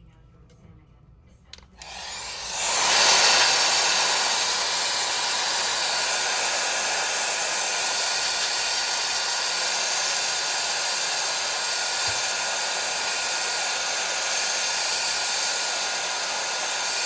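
Electric hot-air blower switching on about two seconds in and running steadily: a loud, even hiss with a faint high whine.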